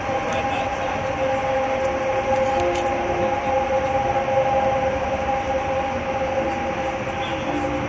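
Subway train running across the viaduct's lower deck: a steady rush of noise with a steady two-note whine over it.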